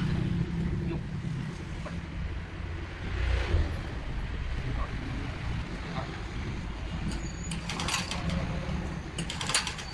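Steady low mechanical rumble, with a few sharp clicks or knocks near the end.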